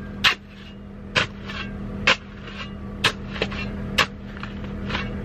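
A shovel chopping into packed snow about once a second, each stroke a short sharp strike, over a steady low hum.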